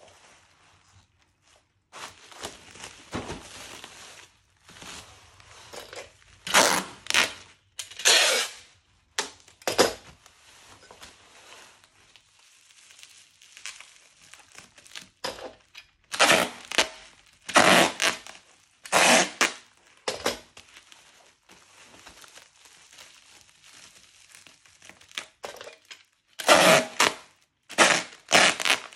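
Plastic packaging being handled: repeated short bursts of crinkling and tearing, with quieter rustling between them.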